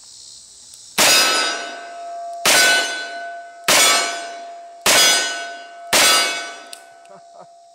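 Five shots from a Colt New Service revolver in .45 Colt, fired double action about a second and a half apart. After the hits a steel target rings on with a clear fading tone.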